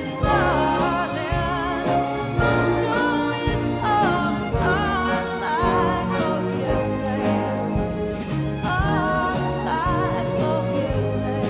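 A pops orchestra and band playing a slow Christmas song: sustained chords under a melody line with vibrato.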